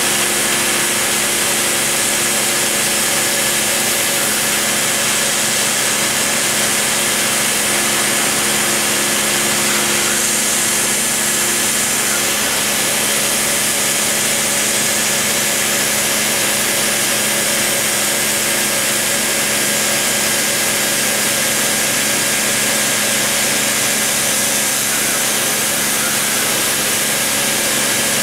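Dremel rotary tool spinning a small cutter at high speed as it routes MDF: a steady high whine with a hiss of cutting over it.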